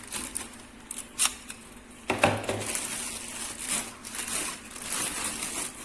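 Plastic wrapping crinkling and rustling in irregular crackles as it is pulled off the stand.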